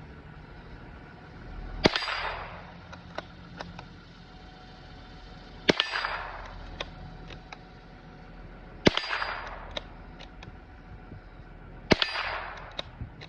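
Ruger Precision .22 LR bolt-action rifle firing Armscor hollow-point rounds, four sharp shots about three to four seconds apart, each followed by a few light clicks as the bolt is worked. The spent cases extract without the ejection malfunction seen with other ammunition.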